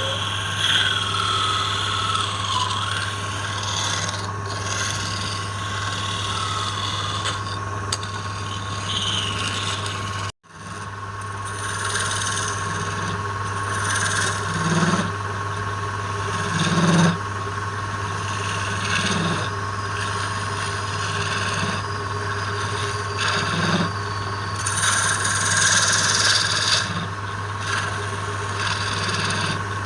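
Wood lathe running with a steady hum while a tool works the spinning wood, giving a continuous scraping, rubbing noise that swells and eases. The sound cuts out for a moment about ten seconds in.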